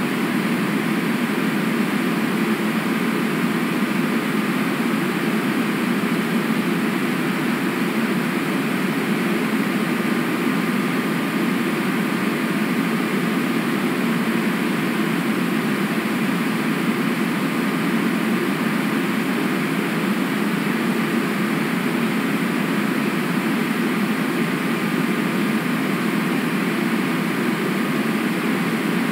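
Steady, even rushing of river water, with no distinct sounds standing out.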